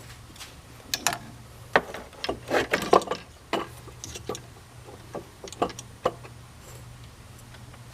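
Clicks and knocks of hard parts being handled as an aluminium throttle body is set into place on a plastic intake manifold. A run of sharp taps and knocks about a second in, stopping after about six seconds.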